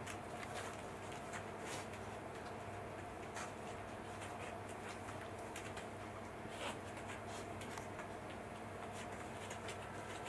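Quiet room hum with scattered soft, irregular ticks and rustles.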